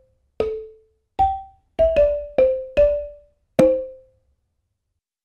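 Short logo jingle of mallet-percussion notes, seven single struck notes with a low thump under each, the last one about three and a half seconds in.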